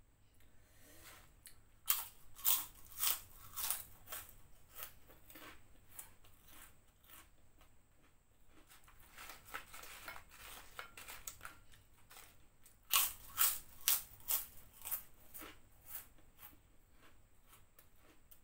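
Prawn crackers (kerupuk udang) being bitten and chewed close to a clip-on microphone: bouts of sharp, crisp crunches, loudest about two seconds in and again around thirteen seconds in, with lighter crunching between.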